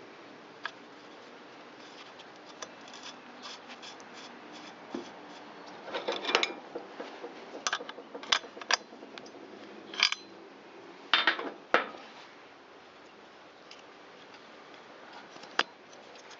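Hand tools and small metal and plastic parts clicking and clinking as they are handled during reassembly of a string trimmer, a scattered run of light knocks with a few sharper clanks.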